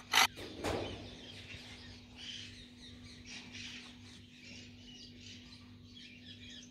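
Small birds chirping in the background, with two short sharp sounds in the first second and a faint steady hum underneath.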